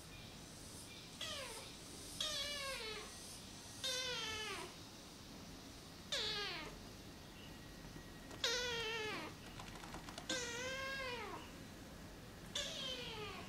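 A young ginger-and-white kitten meowing over and over: about seven high, short meows a second or two apart, each sliding down in pitch.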